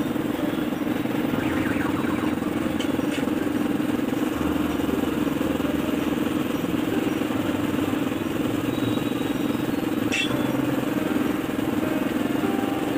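A motor running steadily with an even, unbroken drone, and one sharp click about ten seconds in.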